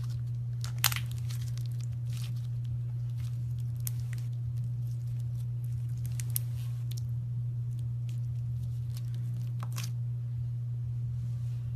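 Slime being pulled and squeezed, giving scattered sticky crackles and tearing sounds with a sharper snap about a second in, over a steady low hum.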